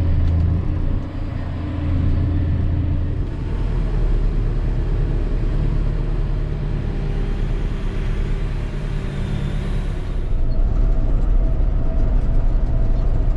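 Tractor engine running steadily while hauling a grain trailer, a low drone whose note shifts slightly a few times.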